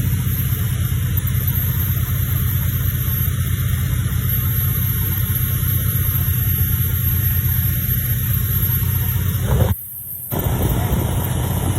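Steady low rumble and rushing noise of a motorboat running at speed on a river. Near the end the sound cuts out for about half a second, then returns.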